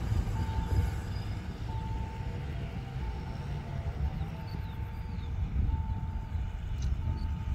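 Railway level-crossing warning signal sounding a repeating single-pitch beep, each a little over half a second long, about every 1.3 seconds, over a low rumble. The crossing is warning of an approaching Appenzeller Bahnen train.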